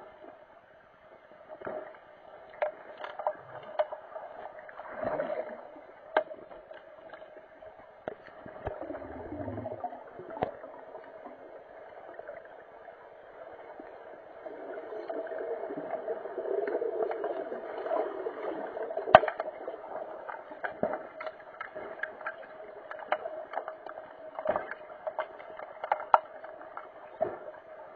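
Underwater hockey play heard through a microphone under the pool water: a steady hum with swells of swirling, bubbling water from swimmers and fins, broken by many sharp clicks and knocks of sticks and puck. The loudest click comes about two-thirds of the way through.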